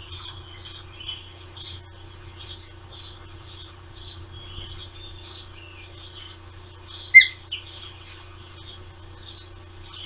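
Ospreys chirping at the nest: a steady run of short, high chirps about two a second, with one louder, falling call about seven seconds in. A steady low electrical hum lies underneath.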